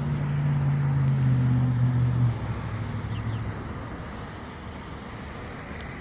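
A motor vehicle's engine humming steadily, loudest in the first two seconds and then cutting away, over a steady background rush. A bird chirps briefly near the middle.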